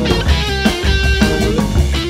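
Funk band playing a groove: electric guitar over drum kit and bass, with held notes above.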